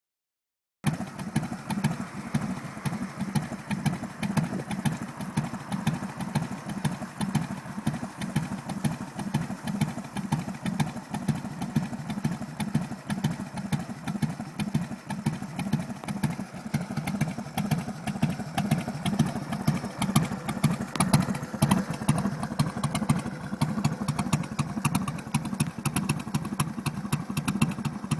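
Harley-Davidson V-twin motorcycle engine idling with a rapid, uneven low pulsing. It cuts in abruptly about a second in.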